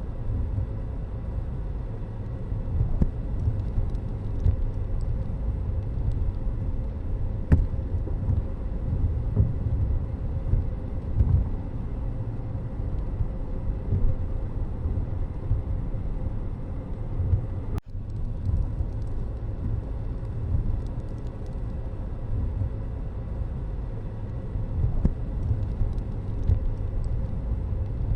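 Motor vehicle road noise: a steady low rumble that briefly cuts out a little past halfway.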